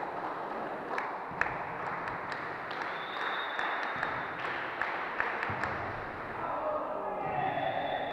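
Clapping and indistinct voices from players and onlookers at an indoor volleyball match, with a scattering of sharp knocks.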